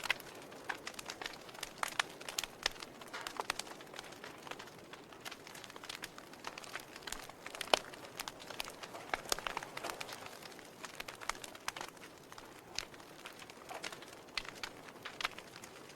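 Wood fire in a fireplace crackling: irregular pops and snaps over a soft hiss, with one sharper pop about eight seconds in.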